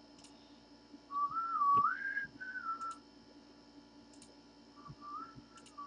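A person whistling a short tune: one phrase of a few gliding notes lasting about two seconds, then a shorter, fainter phrase near the end. A few faint ticks are heard in between.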